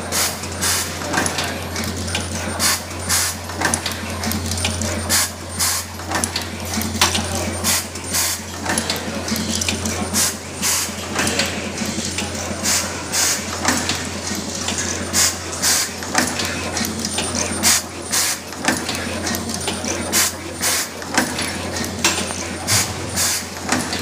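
Automatic waterproof-seal inserting, wire twisting, tinning and crimping machine running. A steady low hum comes from its vibratory bowl feeder, under a fast, irregular clatter of sharp mechanical clicks and clacks.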